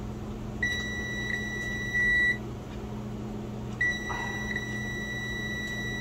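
Digital multimeter's continuity beeper sounding a steady high tone as the probes close through a replacement keyboard key switch, showing the switch makes contact. The first beep lasts under two seconds, and a second, longer beep starts about four seconds in. A low steady hum runs underneath.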